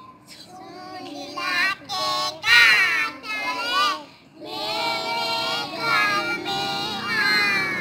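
A young child singing solo in a loud, high voice, in wavering sung phrases with a short pause about four seconds in.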